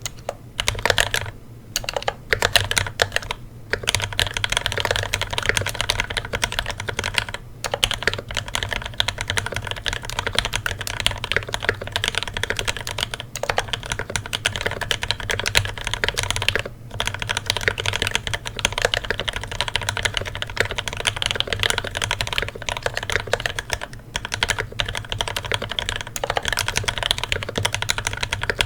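Continuous typing on a custom mechanical keyboard with lubed, filmed Marshmallow linear switches in a brass plate: rapid keystrokes with a few brief pauses, over a steady low hum.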